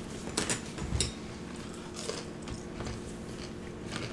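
Someone biting into and chewing fried fast food, with short crisp crunches, the strongest two about half a second and a second in. A faint steady hum runs underneath.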